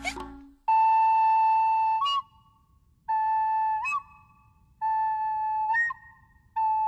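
A recorder playing four long steady notes with short gaps between them. Each of the first three notes breaks off in a sudden squeaky jump up in pitch as a hiccup jolts the player's breath.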